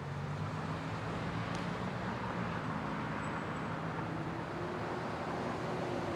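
Steady road traffic noise from an expressway: a continuous wash of tyres with a low engine hum.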